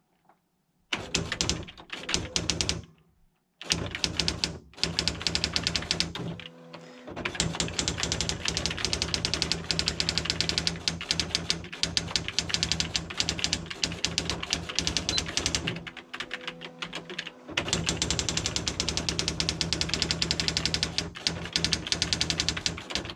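Sharp PA-3000II daisy wheel electronic typewriter printing: fast runs of sharp printwheel strikes over a steady low motor hum. The runs break off a few times, and twice a steady motor tone sounds in the pause.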